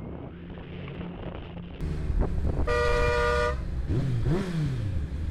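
Motorcycle engine running under road noise, with a vehicle horn sounding once for just under a second about halfway through, followed by the engine revving up and back down twice.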